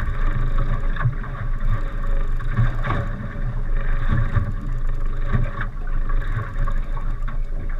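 A small fishing boat's engine hums steadily, with water slapping and knocking against the hull at irregular moments.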